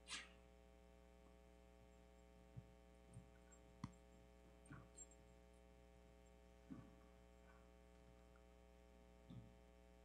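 Near silence with a steady electrical mains hum, broken by about eight faint, brief knocks scattered through the room, the loudest right at the start.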